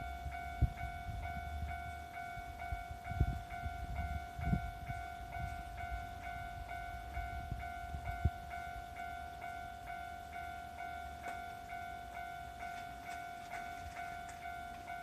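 Japanese railway level-crossing alarm ringing its 'kan-kan' bell steadily, about two strikes a second. A low rumble with several knocks, plausibly a passing train, runs through the first half and dies away about eight seconds in.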